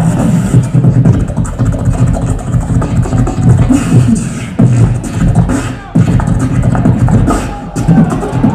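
Beatboxer performing into a microphone through the PA: deep sustained vocal bass lines with sharp percussive strikes in a steady rhythm, cutting off briefly twice around the middle.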